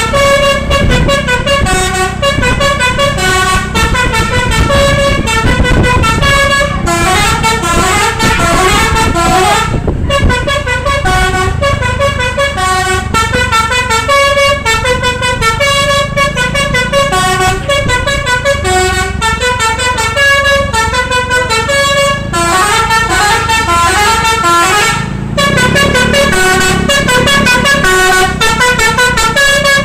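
A bus's Basuri telolet musical air horn playing a fast tune of many short notes, with quick descending runs and a few brief breaks. Beneath it is a steady rumble of engine and road noise.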